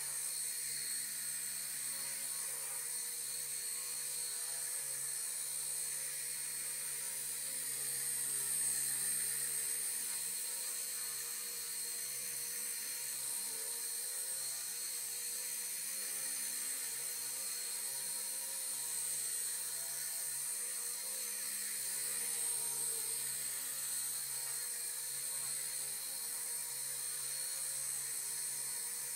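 Walkera Genius CP V2 micro collective-pitch RC helicopter hovering: the steady high-pitched whine of its electric motors and spinning rotor blades, swelling slightly a couple of times as it moves.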